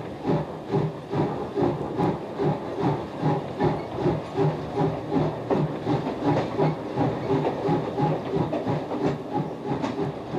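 Large Japanese steam locomotive (JNR C59/C62 class) working a train away from a station. Its exhaust chuffs in a steady beat of about two a second, with steam hissing from the cylinder cocks.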